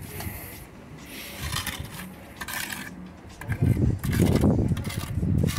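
A steel mason's trowel clinks, taps and scrapes on brick and mortar in short, scattered strokes. From about three and a half seconds in, a heavy low rumble is the loudest sound.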